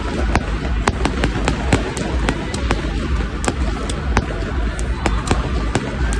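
Fireworks going off, with sharp bangs several times a second over a continuous low rumble.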